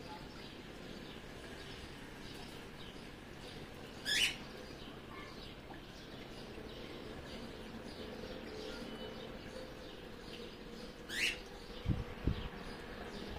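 Small birds chirping, with two louder brief sweeping calls about four seconds in and again about eleven seconds in. Two short low thumps near the end.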